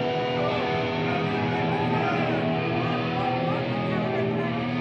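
Live rock band's distorted electric guitars playing held and sliding, bending notes.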